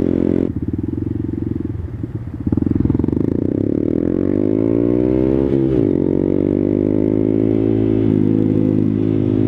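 Honda Grom's 125 cc single-cylinder engine running through a Two Brothers aftermarket exhaust while riding. It is quieter for the first couple of seconds, then pulls harder with the pitch climbing, drops sharply at a gear change about five and a half seconds in, and climbs again.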